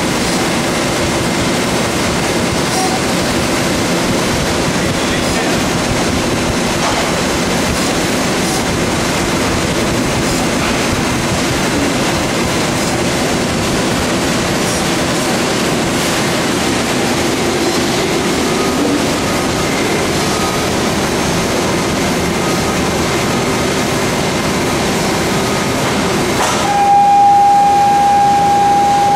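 Running industrial machinery: a steady, even roar with a low hum underneath and no punching strokes. Near the end the roar changes abruptly and a steady high-pitched tone sets in and holds.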